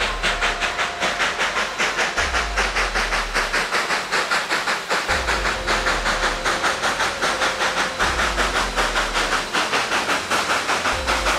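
A moving train: a fast, even rhythm of about five beats a second over a steady hiss, with a low rumble that swells about every three seconds.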